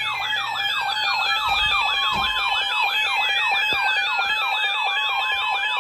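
Emergency-alert siren tones for a severe thunderstorm warning: a rapid wavering sweep, up and down about two to three times a second, over steady tones and slow falling glides.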